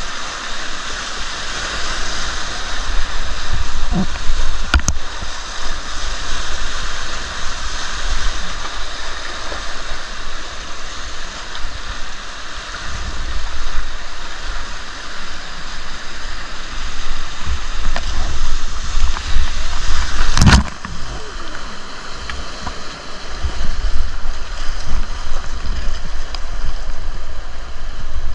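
Rushing river water with a steady low rumble underneath, as from a packraft on the river. Two sharp knocks stand out, about five seconds in and again about twenty seconds in.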